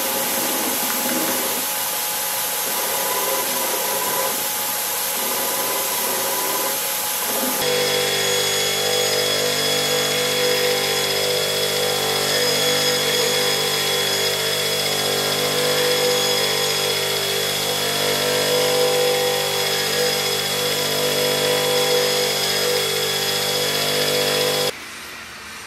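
Belt grinder running steadily, with a metal knife-handle fitting being ground on its belt. About eight seconds in the sound changes abruptly to a steadier run with several clear whining tones, and near the end the level drops sharply.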